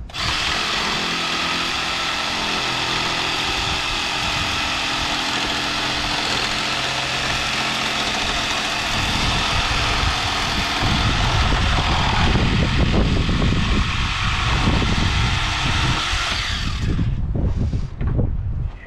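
Handheld jigsaw cutting a closet shelf board to trim it. The motor starts abruptly and runs steadily for about nine seconds, then the cut turns rougher and lower for about eight more. It stops, runs again briefly and cuts off near the end.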